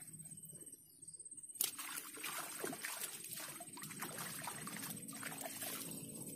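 Water splashing and sloshing right at the bank's edge, starting with a sharp knock about a second and a half in and then going on irregularly.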